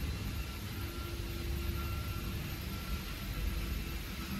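GoodCut GC1325VH CNC router running: a steady low rumble with a thin high whine, and a mid-pitched motor tone that comes and goes several times.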